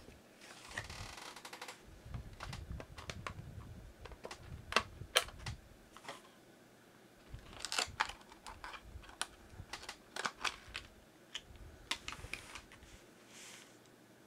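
Scattered light clicks and taps, with a brief rustle about a second in, from the packaging of a boxed N scale model freight car being handled and opened.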